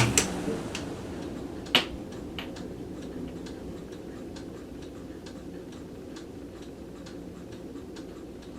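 A 1984 Lasko wall-mounted oscillating fan switched off with a click, its motor hum cutting out as the blades coast down. A sharper click comes about two seconds in. Then a low running noise with faint, evenly spaced ticking, a few ticks a second.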